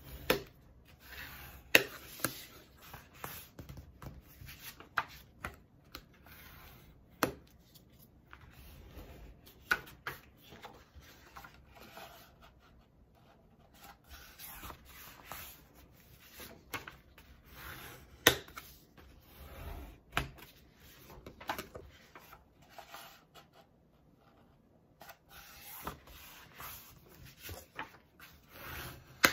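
Sheets of heavy paper being folded and the folds creased with a bone folder: rubbing strokes along the crease and paper rustling, with a few sharp taps, the loudest about 18 seconds in.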